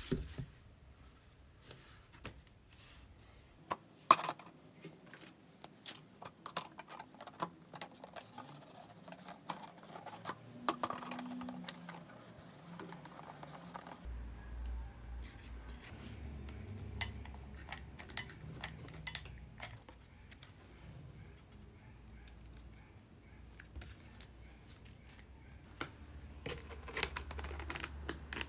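Scattered clicks, taps and light knocks of small crafting materials and tools being handled on a work surface, the sharpest knock a little after four seconds in.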